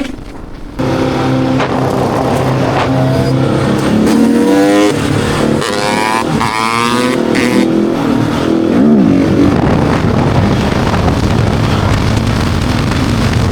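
Husqvarna 701 Enduro's single-cylinder engine being ridden hard: after a quiet first second it picks up, the revs climbing in rising sweeps through the middle, dropping back, then running on steadily.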